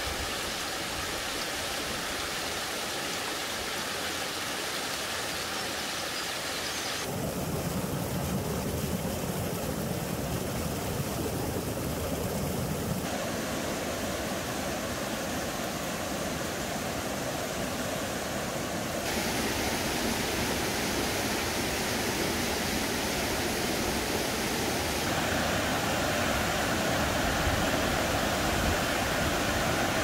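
Rushing water of a mountain stream and its waterfalls, a steady rush whose tone changes abruptly about every six seconds.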